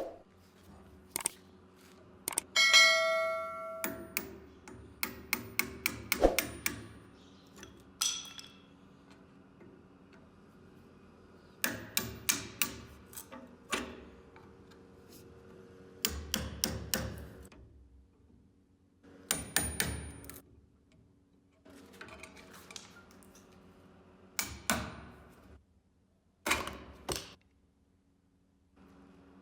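Metal objects handled and knocked together in clusters of clicks and clinks, with one ringing metallic strike about three seconds in, typical of working on a rusty machete blade with hand tools.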